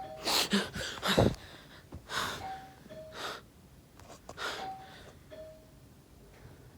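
A doorbell chiming ding-dong three times, the second note lower than the first. Several loud, sharp breaths or gasps come between the chimes, the strongest in the first second or so.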